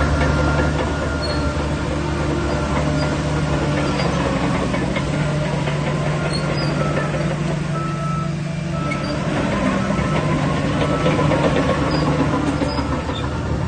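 Shantui DH17 crawler bulldozer's diesel engine running steadily under work, with a faint high whine over it. The engine eases briefly about eight seconds in.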